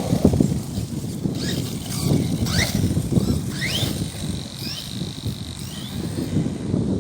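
JLB Cheetah RC monster truck's brushless motor whining up in short throttle bursts, about one rising whine a second, over rumbling wind noise on the microphone.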